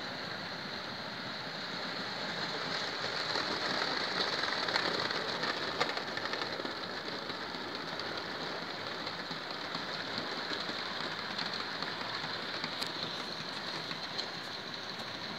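Model train running on the track: a steady rolling, rushing noise of wagon wheels on the rails and the locomotive's motor, growing a little louder a few seconds in as it passes close.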